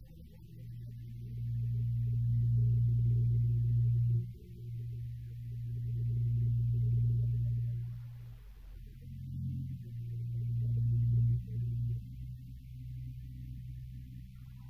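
Low droning tone from an ambient film score, swelling and fading in three waves, with short breaks about four seconds in and around eight seconds in.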